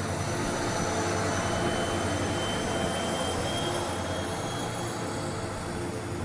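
A train running by: a steady rushing rail noise with faint high-pitched whines, a little louder in the middle.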